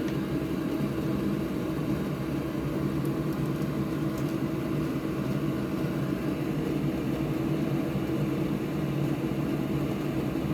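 Steady, even hum of a fan motor, with a few faint ticks near the middle.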